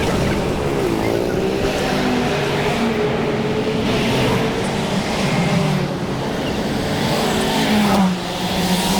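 Motor vehicle engine running amid road noise, its pitch dipping about a second in and then rising slowly.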